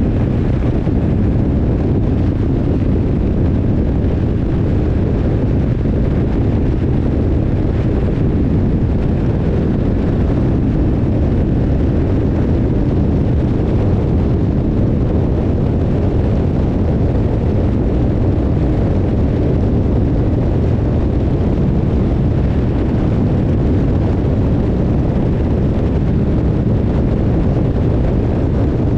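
BMW R 1150 R's boxer twin engine running steadily under way, mixed with wind noise on the microphone.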